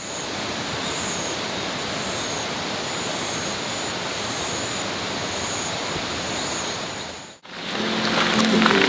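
Steady rushing sound of water, with a faint high wavering trill above it; it stops abruptly about seven seconds in.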